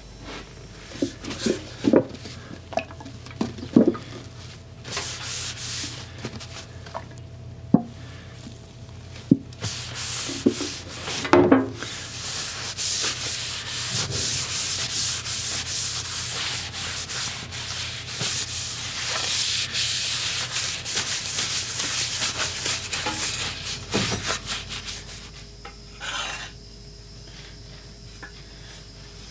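A wooden axe handle being shaped by hand: scattered sharp knocks and short scrapes, then a long run of rapid back-and-forth sanding strokes that stops a few seconds before the end.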